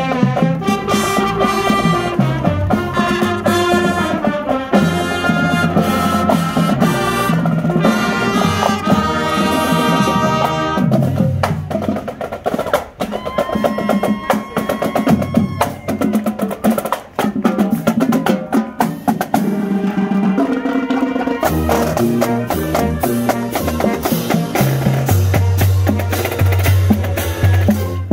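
Marching band playing as it marches: saxophones, trumpets, trombones, clarinets and flutes play a tune over the drums for about the first ten seconds. After that the drums carry on largely alone, with quick sharp strokes and low bass-drum beats, the winds faint underneath.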